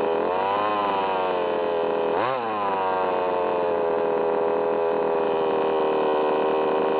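HPI Baja 5B's CY two-stroke petrol engine running with a steady high-pitched tone, revved twice: a gentle rise and fall about half a second in and a quick sharp blip about two seconds in. The owner calls the noise it makes strange.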